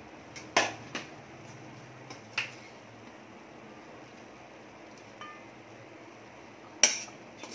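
Metal spoon clinking against a steel bowl and pot while scooping chicken curry pieces: a few sharp metallic clinks, the loudest about half a second in and another near the end.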